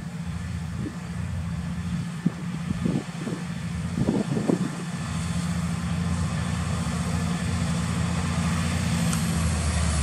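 Massey Ferguson 7720 tractor's six-cylinder diesel engine working under load while pulling a plough, growing louder as the tractor comes closer. A few short knocks sound around the middle.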